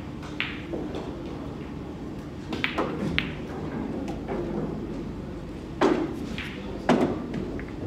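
Billiard balls in a 9-ball game clicking sharply against each other and the cue: several short clicks with a brief ring, the two loudest about a second apart near the end.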